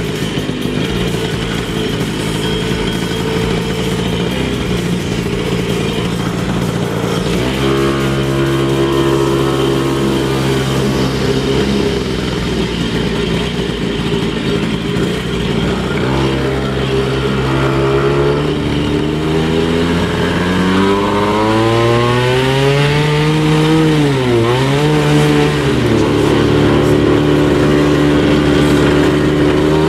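Motorcycle engine running as the bike is ridden, its pitch held steady at times and rising and falling with the throttle, with one quick drop and pickup about two-thirds of the way through.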